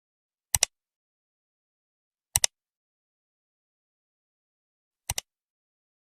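Three sharp double clicks, each a quick pair of snaps, about two and a half seconds apart against dead silence.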